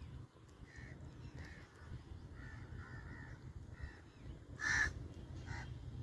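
Crows cawing: a string of short, faint caws, then a much louder caw about four and a half seconds in and another shortly after, over a low steady rumble.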